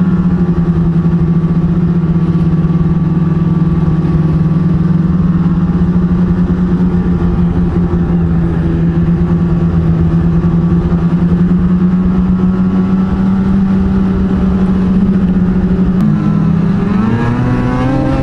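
Ski-Doo snowmobile engine running at a steady cruising pitch while riding a groomed trail, rising in pitch as it revs up about two seconds before the end.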